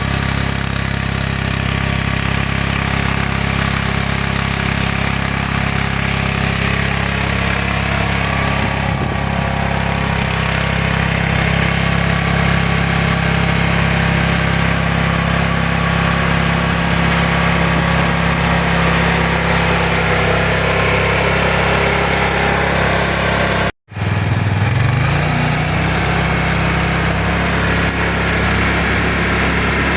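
Iseki A90 walk-behind tractor engine running steadily under load, driving its rotary tiller and furrower. There is a brief break about 24 seconds in, after which the engine note rises as it revs up.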